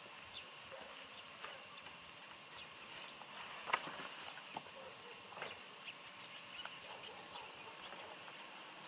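Quiet rural outdoor ambience: a steady faint hiss with scattered small chirps and ticks, and one slightly louder click about four seconds in.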